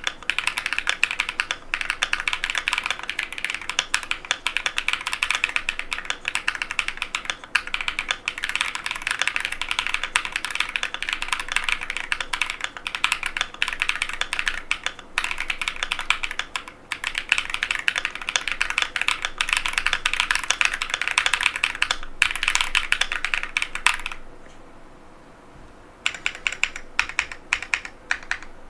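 Fast, continuous typing on an Epomaker Tide75 mechanical keyboard with Epomaker Lemon switches, a dense run of key clacks with brief breaks. Near the end the typing stops for about two seconds, then starts again.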